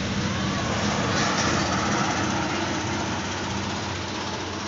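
An engine running steadily at idle: a constant low hum that does not change in pitch, over a steady rushing noise.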